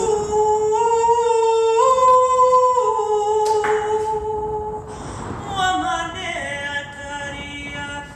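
A woman singing light language a cappella: long held wordless notes that step upward in pitch. She takes a breath about three and a half seconds in, then carries on with softer, lower held notes.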